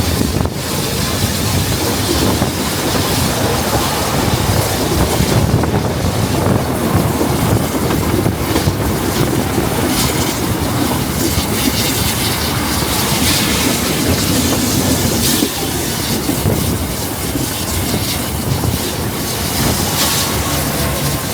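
Narrow-gauge heritage steam train in motion, heard from aboard: the steady rumble and clatter of the carriage wheels running on the rails.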